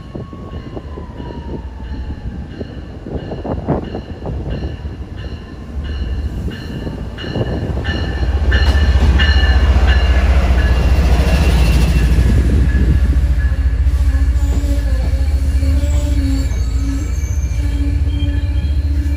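MBTA commuter rail train arriving at the platform, locomotive first: a rumble that swells to a loud low roar about eight seconds in as the locomotive passes close by. The bilevel coaches follow, with wheels and brakes squealing as the train slows.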